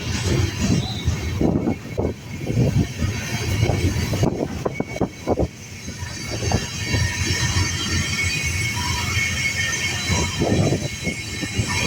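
Freight train cars rolling past, the wheels and cars knocking and clattering. A high-pitched wheel squeal sets in about four seconds in and continues.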